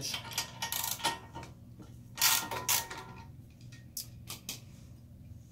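Ratchet socket wrench clicking in three short runs as the 15 mm nuts on a trike's rear axle are worked loose.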